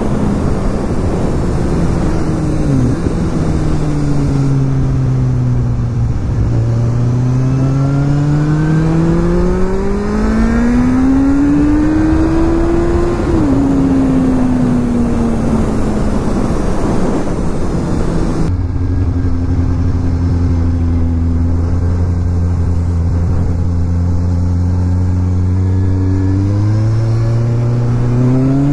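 2008 Kawasaki Z1000's inline-four engine under way, with its pitch climbing and falling as the bike speeds up and slows. It drops sharply about three seconds in and again about thirteen seconds in, as from upshifts, holds steady for several seconds in the second half, then climbs again near the end. Steady wind rush runs underneath.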